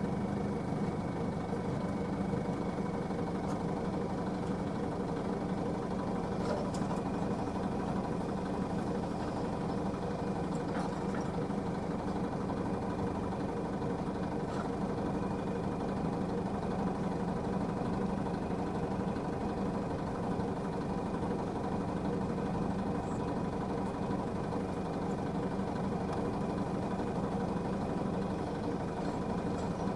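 Heavy diesel engine of earthmoving machinery running steadily at idle, with a few faint clicks over it.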